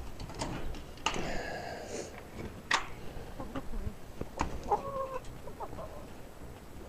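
Chickens calling: one drawn-out call about a second in and a shorter one near the middle, with a few sharp knocks in between.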